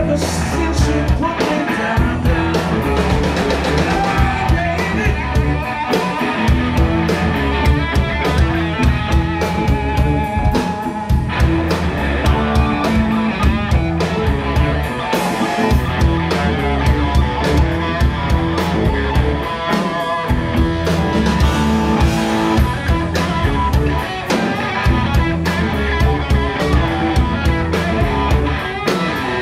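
Blues-rock band playing live: electric guitars over bass and a drum kit keeping a steady beat.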